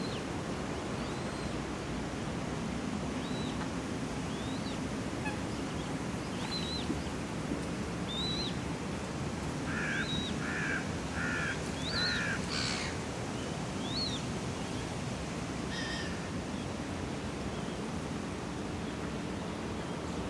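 City park pond ambience: a steady rush of wind and low background hum, with thin high bird calls repeating through the first half. About halfway through, a bird calls four times in quick succession, and another lone call follows a few seconds later.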